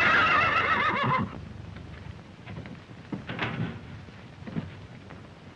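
A horse whinnies: one long, quavering neigh that falls slightly and ends about a second in. Softer, scattered hoof clops follow.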